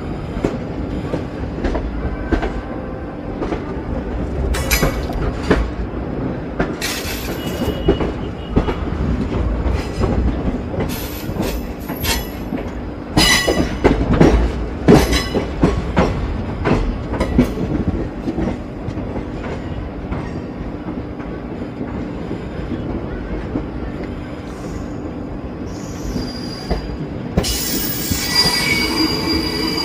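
ICF passenger coaches of an Indian express train running along the track: a steady rumble with frequent clanks and rattles, which thicken into a run of loud knocks about halfway through. Near the end a high wheel squeal joins in.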